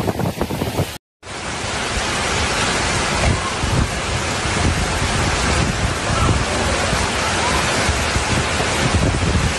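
Fast floodwater rushing down a street, a loud steady rushing noise without a break, carrying cars along in a flash flood. About a second in it cuts in sharply after a brief silence, replacing a shorter stretch of rain and wind noise.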